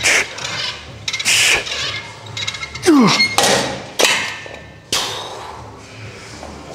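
Gym weight equipment clanking: a run of sharp metal knocks and bangs, roughly one a second.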